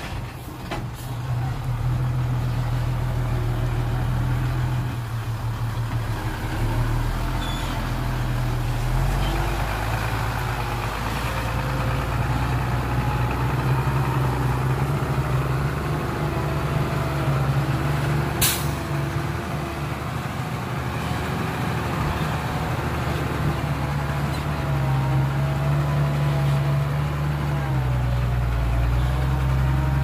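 Heavy diesel engine of a construction vehicle running under load, its speed rising and falling. About eighteen seconds in there is one short, sharp burst of noise.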